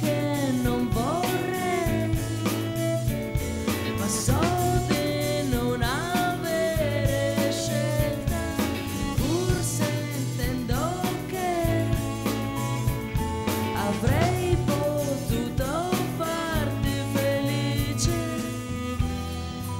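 Band playing a slow song live, with a steady bass line under a woman's wordless sung phrases that swoop up in pitch about once a second.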